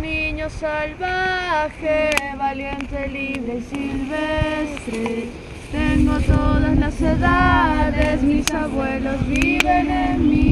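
Voices, mostly women's, singing a ceremonial song together while a ritual offering burns in the bonfire, with a few handclaps. Wind rumbles on the microphone underneath.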